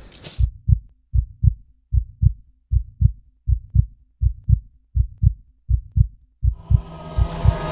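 Heartbeat sound effect: a steady low double thump, lub-dub, a little over one beat a second. About six and a half seconds in, a rising rush of noise and tones swells in underneath it.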